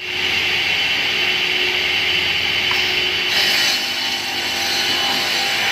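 Automatic pallet-block cutting machine running, its circular saw blades spinning with a steady whine over a noisy rush as they cut wood, with a brief harsher burst about three and a half seconds in.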